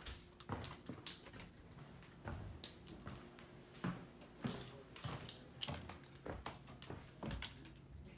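Footsteps on bare wooden floorboards: irregular knocks every half second to a second, mixed with the rustle of a handheld phone, over a faint steady hum.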